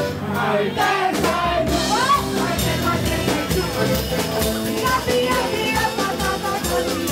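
A live band playing loud, upbeat music with singing. A steady drum beat comes in about a second in.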